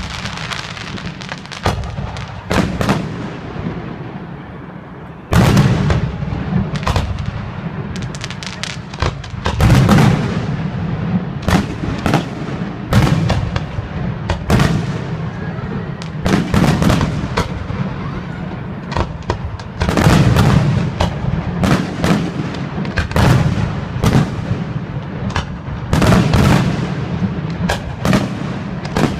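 Fireworks display: aerial shells bursting with loud bangs, many in quick succession and some in clusters. A fading crackle fills the first few seconds before the bangs resume about five seconds in.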